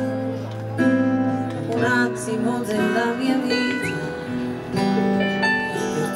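Live pop music from a small band with an electric keyboard, a woman singing over it.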